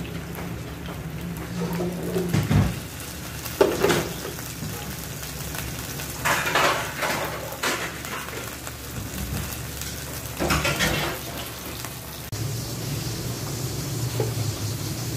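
Floured chicken pieces frying in oil in a nonstick pan, with a steady sizzle. About five short, louder bursts of sizzle and clatter come as the pieces are moved in the pan. A little after the twelfth second the sound changes to butter sizzling in a pan.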